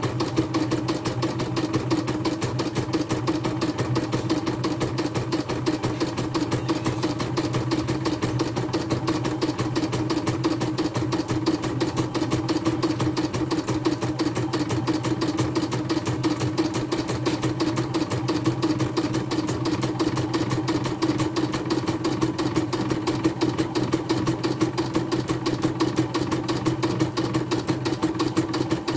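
CNY portable computerized embroidery machine stitching a design: a fast, even run of needle strokes over a constant motor hum, running smoothly without stalling.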